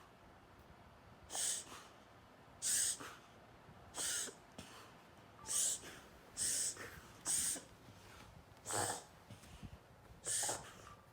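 A dog reverse sneezing: a run of about eight airy, hissing inhalations through the nose, each lasting a fraction of a second and coming roughly once a second or a little more.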